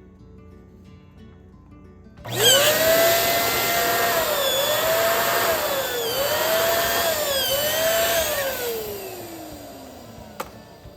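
Electric balloon inflator motor whining as it runs. Its pitch dips briefly three times, about every second and a half, then winds down steadily as the motor spins to a stop. A single sharp click comes near the end.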